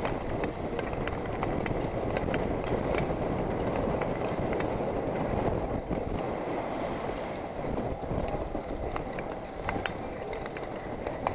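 Speed skates' blades scraping over the ice as a line of skaters goes round the track, a steady rush of noise with scattered sharp clicks from blade strikes.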